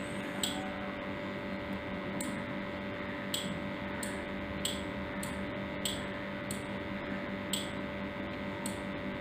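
Steady low electrical hum from a powered circuit, with faint, sharp little ticks coming irregularly, roughly once every half second to a second.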